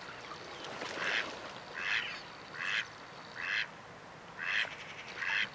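Duck quacking: six short quacks in an even series, a little under a second apart.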